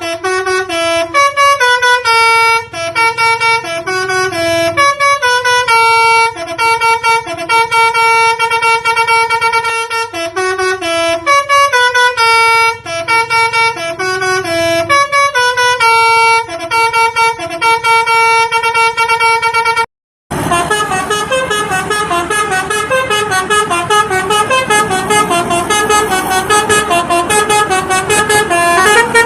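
Telolet (basuri) multi-tone musical horn on a truck or bus playing a tune of stepped, held notes. After a brief break about two-thirds of the way through, a busier, faster run of horn notes follows.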